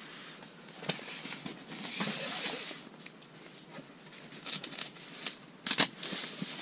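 Rustling and handling noises with scattered sharp clicks. The loudest click comes about three-quarters of the way through, and a longer stretch of rustling falls near the start.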